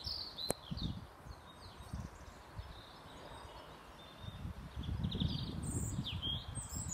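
Small birds chirping in short, repeated calls, over wind buffeting the microphone with a low rumble that grows stronger about halfway through. A single sharp click about half a second in.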